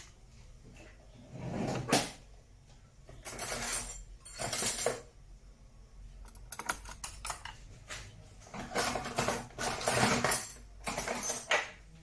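Kitchen things being handled: a run of short clattering and rustling sounds, about seven in all, as utensils and containers are picked up and set down.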